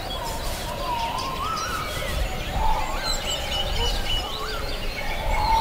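Forest ambience: birds singing and calling, with wavering whistled notes and a run of quick repeated chirps about halfway through, over a low steady rumble.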